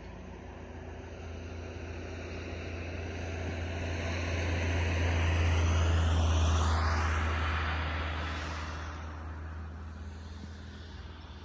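A vehicle passing by: its sound grows to a peak about six seconds in, then fades away with a falling pitch as it goes past.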